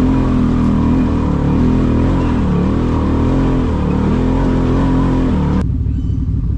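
Off-road vehicle engine revving, its pitch rising and falling repeatedly; it cuts off abruptly near the end to a lower, steady rumble.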